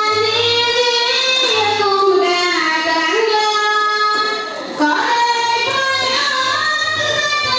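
A high voice singing long, held notes that slide from pitch to pitch, with a short break about halfway through.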